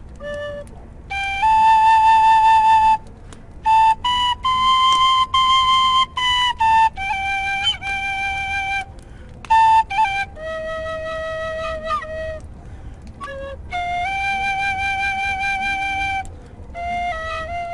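A flute playing a slow melody of held notes, each lasting a second or two, grouped into phrases with short breaths between them.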